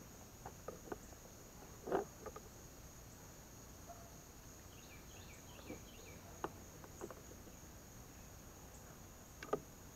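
Insects buzzing in a steady high background, with a few light knocks and clicks as PVC pipe fittings are handled, the loudest about two seconds in. A short run of high chirps, like a bird's, about five seconds in.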